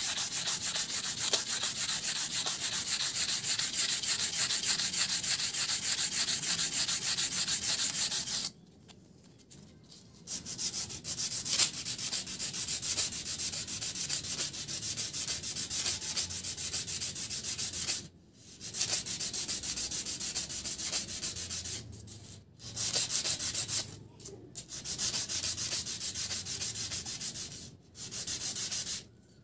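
Coarse 40-grit sandpaper scrubbed rapidly back and forth along a steel knife-sharpening rod, scouring rust off the shaft. The scraping stops briefly several times, longest about a third of the way in.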